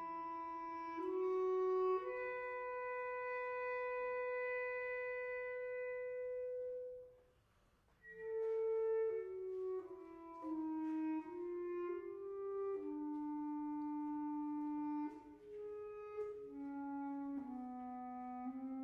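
Chamber orchestra playing a slow contemporary classical passage. Long held notes are followed by a brief pause about seven seconds in, then a line of shorter notes stepping up and down in pitch.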